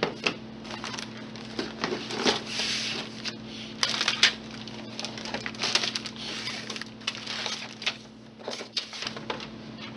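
Handling of a plastic model kit and its box: irregular rustling with scattered sharp clicks and light knocks, the loudest around four seconds in, over a steady low hum.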